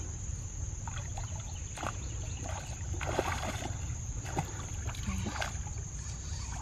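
Hooked catfish splashing at the water's surface as it is played on the line, with short scattered splashes that come thickest about three seconds in.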